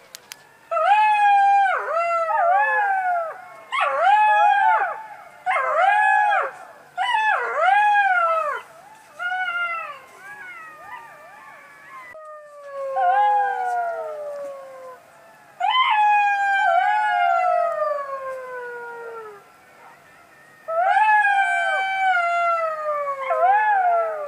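A group of golden jackals howling in chorus: several overlapping wailing voices that rise and fall in pitch, coming in bouts of a few seconds with short pauses between. The later calls are longer wails that slide downward in pitch.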